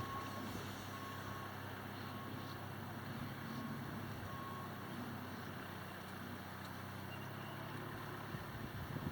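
Steady low engine hum with a faint beep repeating about once a second for the first few seconds, like a vehicle's reversing alarm.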